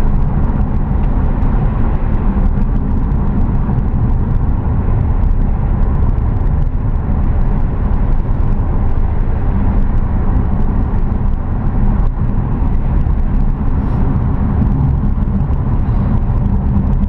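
Car driving along a road: a steady, loud rumble of tyres and engine with no change in speed.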